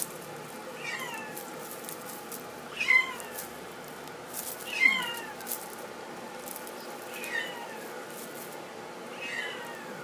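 Flame point Himalayan kitten meowing five times, about every two seconds, each a short high call that falls in pitch.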